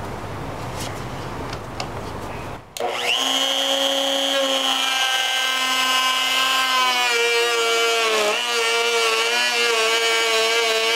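Compact router running a pilot-bearing bit, trimming stacked Kydex sheets to the outline of a form. After a stretch of steady hiss, the motor's high whine comes in about three seconds in and holds, wavering and dipping in pitch for a moment past the middle as it cuts.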